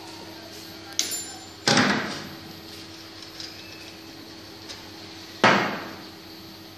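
Three sharp metal knocks and clanks, about a second in, just after, and a louder one near the end, as metal flange discs and a knurled knob are handled and fitted on the spindle of a coil winding machine. A steady low hum runs underneath.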